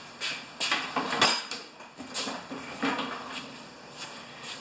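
Footsteps on a concrete floor: a handful of short, irregular scuffs and clicks.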